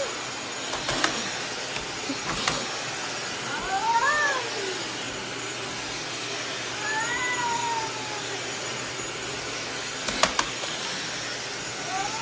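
Domestic cat yowling defensively at a vacuum cleaner: long drawn-out yowls that rise and fall in pitch, about 4 seconds in, again about 7 seconds in, and once more starting near the end, with a few sharp knocks in between.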